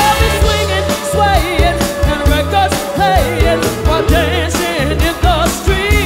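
Live soul band playing in the Motown style, with singing over a steady drum and bass beat. A long note is held through about the first half.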